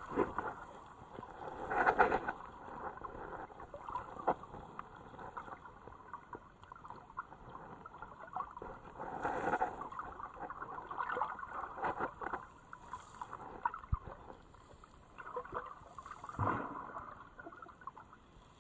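Underwater sound of shallow sea water heard through a submerged camera: muffled sloshing and gurgling that swells in several bursts, loudest about two seconds in and again in the middle and near the end, with scattered faint clicks.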